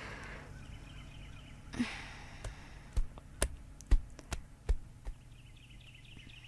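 A breathy exhale like a sigh, then a quick, irregular run of about eight sharp knocks or taps over two and a half seconds.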